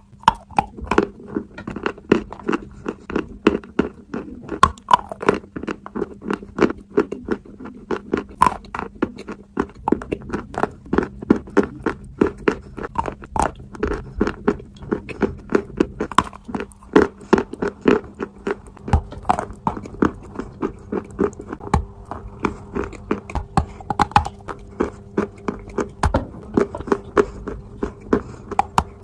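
Dry and wet chalk being bitten and chewed close to the microphone: a dense, continuous run of crisp crunches, several a second, with a faint steady hum underneath.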